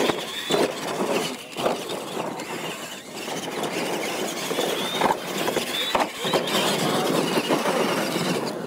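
Two radio-controlled monster trucks racing on a dirt track: motor and gear whine rising in pitch as they accelerate, over a steady rush from the tires and drivetrains. Several sharp thumps come in between, and it all fades near the end.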